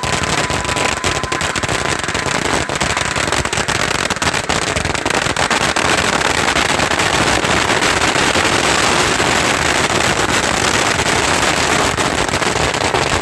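A dense, continuous crackle of firecrackers, many small bangs in quick succession. A thin whistling tone fades out in the first few seconds.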